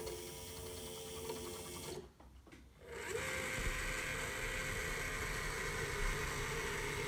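Small electric drive motor and gearing of a Heljan model container crane whirring as the gantry travels along its rails. It stops for about a second, a couple of seconds in, then starts again as a steady whine.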